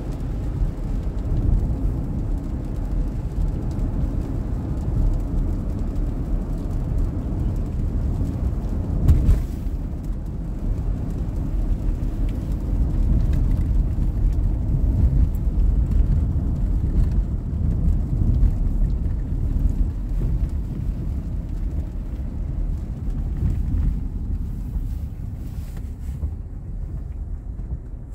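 Road noise heard from inside a moving car on a wet road: a steady low rumble of engine and tyres, with a single thump about nine seconds in. It eases off near the end as the car slows.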